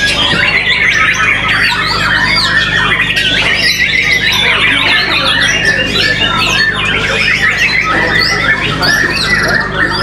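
White-rumped shamas (murai batu) singing over one another: a dense, unbroken stream of whistles, chirps and harsh squawking calls.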